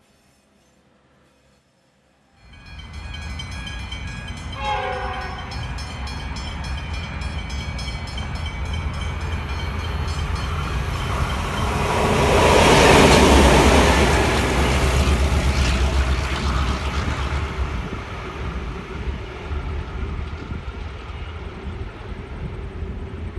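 Pair of SSR T class diesel-electric locomotives running light engine: they come in after a moment of near silence, sound a short horn blast about five seconds in, then pass with a low diesel rumble that is loudest around the middle and fades as they draw away.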